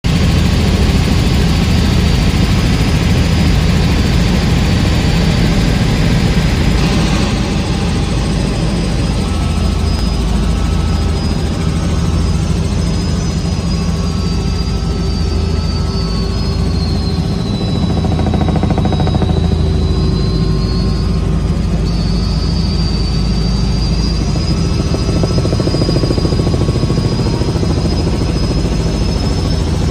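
Helicopter in flight heard from inside the cockpit: a steady, loud engine and rotor drone. A thin high whine rides on top and dips in pitch before rising again about two-thirds of the way through.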